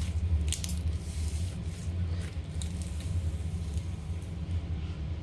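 Steady low rumble with several short, soft clicks and crackles from putty being squeezed and handled, mostly in the first half.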